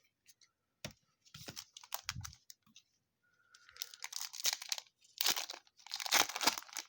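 Foil trading-card pack wrapper being torn open and crinkled, in several rustling, tearing bursts, the loudest near the end.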